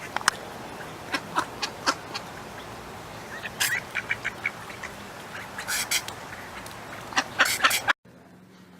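A string of short, sharp animal sneezes, some single and some in quick clusters, over a steady background hiss. The sound cuts off abruptly near the end.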